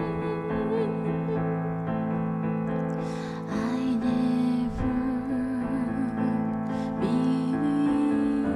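Music: a slow song with sustained electric piano chords, and a held melody line coming in about three and a half seconds in.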